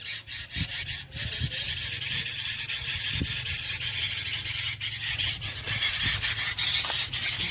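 Dense, continuous high twittering and chattering of small birds, full of quick ticking notes.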